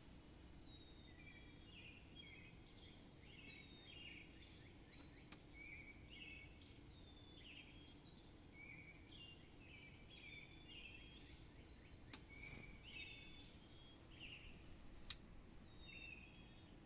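Small birds chirping faintly, with many quick, overlapping short notes throughout and a faint steady low hum underneath. A single sharp click comes near the end.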